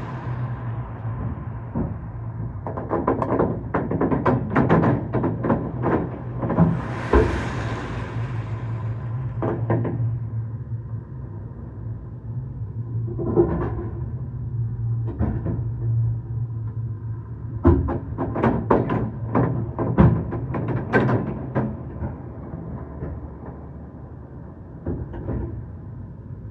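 Fireworks going off in rapid clusters of bangs and crackles, with short lulls between volleys, over a steady low hum.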